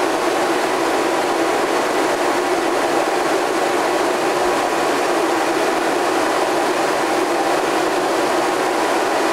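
Steady machinery running in a boat's engine room: an even, unchanging rushing hum with a few faint steady tones.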